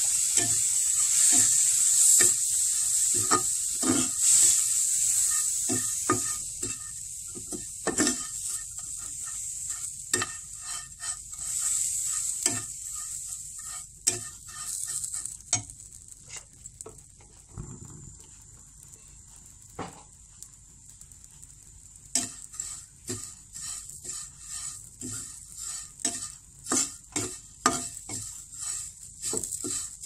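Vermicelli sizzling in a hot non-stick frying pan just after a few spoonfuls of water are sprinkled on to soften it, while a metal spatula stirs it and scrapes the pan. The sizzle is loudest at first and dies away over about the first half, leaving the spatula's repeated scrapes and taps.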